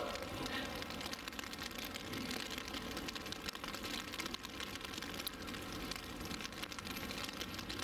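Quiet, steady background noise with no distinct sound event.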